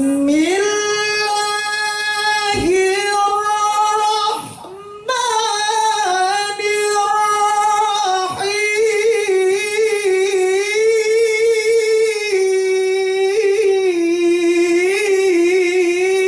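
A single high voice singing long held notes with wavering melodic ornaments, sliding up into the first note and breaking off briefly a few times.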